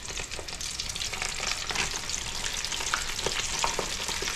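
Hot oil in a cooking pot bubbling and crackling steadily around breaded bullfrog legs as they deep-fry.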